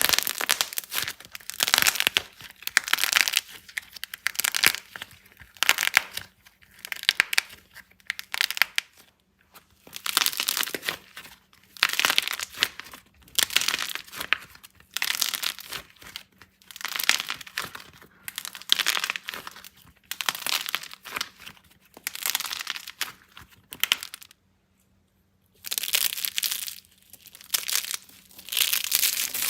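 Dry soap being cut and crumbled in repeated strokes, each about a second long, with a short pause near the end.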